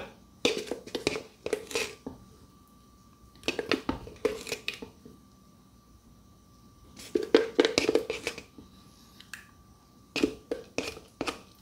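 A spatula scraping mayonnaise out of a jar and tapping it off into a small glass bowl. The sound comes in four short bursts of scrapes and clicks, with quiet gaps between them.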